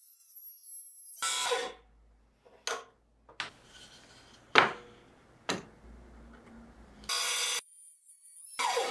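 A wooden block knocked and set down on a workbench and on the metal table of a mini table saw: a few separate sharp knocks, the loudest a little past halfway. A falling sweep of sound comes near the start and again at the end, and a brief loud steady hum sounds about seven seconds in.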